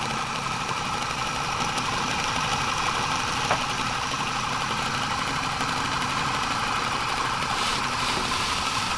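Homemade guitar pickup winder's electric motor running steadily at full speed, spinning its shaft and wooden bobbin holder.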